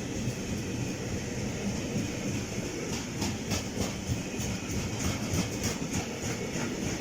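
A train running on the track with a steady low rumble; from about halfway through, its wheels click rapidly and unevenly over the rail joints.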